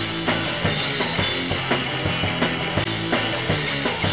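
Music with drums keeping a steady beat.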